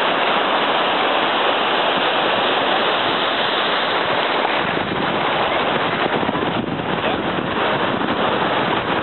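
Steady rush of surf washing up a sandy beach, mixed with wind noise on the microphone.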